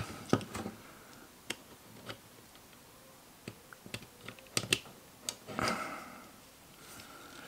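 Small parts of a miniature die-cast AK-47 replica clicking and scraping as the dust cover is pushed and worked against the receiver, which it will not yet seat in. Irregular light clicks, with a cluster around four to five seconds in and a brief rustle just after.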